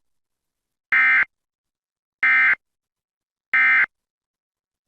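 Emergency Alert System end-of-message signal: three identical short, harsh data bursts about 1.3 seconds apart. The burst trio marks the close of the alert.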